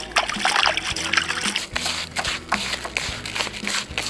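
Water scooped by hand from a plastic basin and splashed onto dry groundbait crumbs, in many quick splashes and dribbles, to wet the bait mix. Background music plays underneath.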